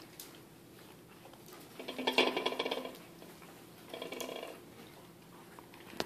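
A dog growling in two bouts during a tug-of-war game over a rope toy: a louder, rapidly pulsing growl of about a second starting about two seconds in, and a shorter one around four seconds in.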